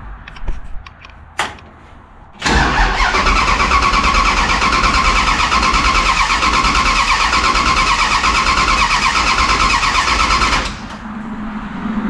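Gasser drag car's V8 cranking on its starter, after a sharp click about a second and a half in. It turns over for about eight seconds at an even pace without slowing down, then cuts off suddenly. The battery cable is bolted straight to the bumper, bypassing a defective battery cutoff switch that had made it crank slowly, as if the battery were dead.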